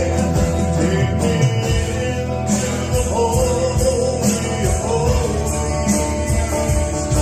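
Live band playing a gospel-rock song, with a steady drum beat and a bending lead melody over bass and chords.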